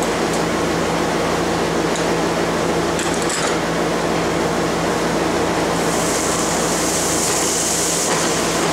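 Dust collector and shop vacuum running steadily, pulling air and sawdust down through the collection hood, with a few light ticks. A brighter hiss comes in over the last few seconds.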